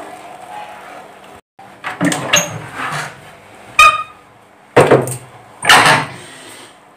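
Wooden spatula stirring rice in water in a metal frying pan, knocking against the pan several times; one knock about four seconds in rings briefly.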